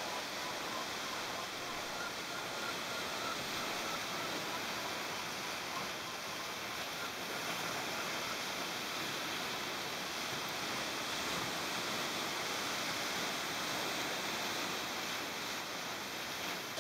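Steady rush of ocean surf breaking on rocks.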